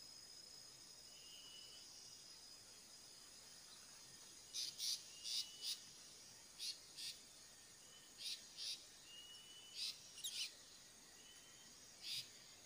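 Faint outdoor animal sounds: a steady high insect trill, then, from about four and a half seconds in, short harsh chirps in pairs about once a second, with a few faint rising bird whistles.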